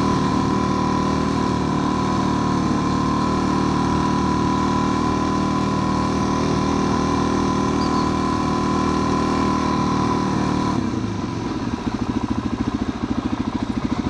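Motorcycle engine running steadily under way. About eleven seconds in the revs drop and it settles into a pulsing idle.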